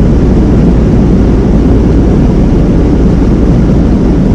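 Steady road and engine rumble heard inside a moving van's cabin, loud and unbroken.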